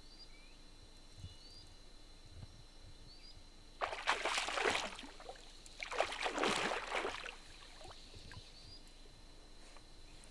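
A hooked fish thrashing at the surface of the lake while being played on a fly line: two bursts of splashing, about four and six seconds in, each lasting about a second.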